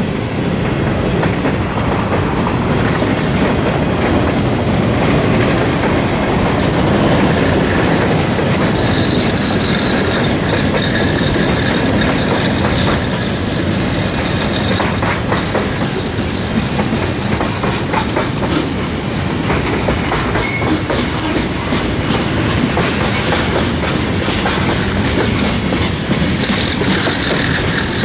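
CSX freight train rolling past, its steel wheels clacking over rail joints in a steady rumble, with a faint wheel squeal about a third of the way in and again near the end.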